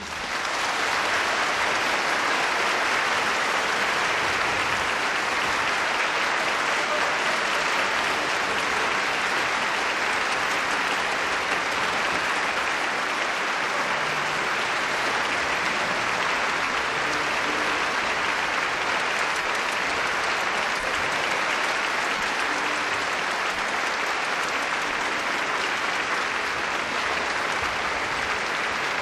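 Large concert audience applauding, the clapping rising to full strength within the first second and then holding steady.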